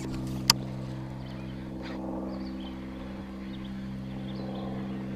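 Small boat motor humming steadily at a constant speed, with a single sharp click about half a second in.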